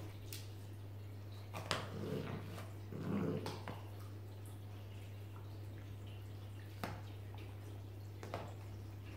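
Two corgis playing tug-of-war with a sneaker and its lace on a wooden floor: scattered clicks and knocks from claws and the shoe, and a brief low dog vocalization about two to three seconds in.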